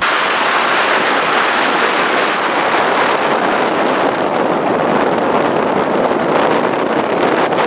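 Loud, steady rush of wind over the microphone aboard a pontoon boat running flat out, starting abruptly.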